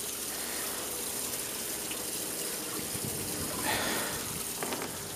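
Bait tank's recirculating pump spraying a steady stream of water into the tank of live shad, with a brief louder swell of noise about three and a half seconds in.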